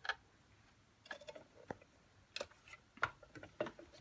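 Scattered light clicks and taps from hands handling small objects, coming at irregular intervals, a few each second.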